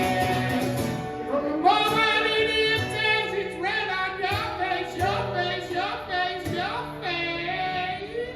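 Live acoustic song: a guitar chord rings for about a second, then a voice comes in singing a melodic line over the guitar.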